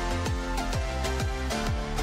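Electronic background music with a steady beat of about two kick-drum hits a second.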